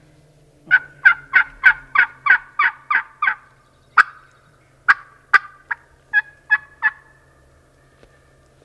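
Turkey yelping: a run of about ten evenly spaced, loud yelps, roughly three a second. Then come sharper, more widely spaced notes and a last group of three that ends about seven seconds in.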